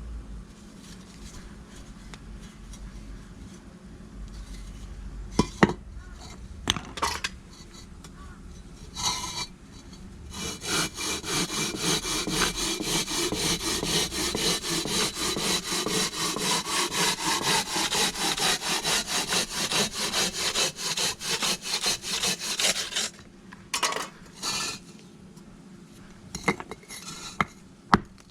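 A hand tool rasping back and forth across a brick in fast, even strokes for about twelve seconds, with a few sharp knocks before and after.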